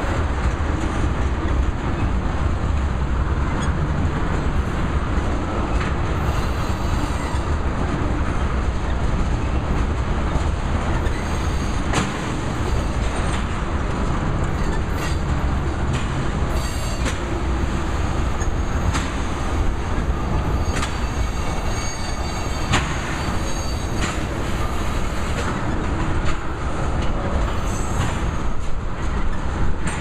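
Freight train of tank cars rolling slowly past: a steady rumble of steel wheels on rail, broken by frequent clanks and clicks, with brief high wheel squeals now and then.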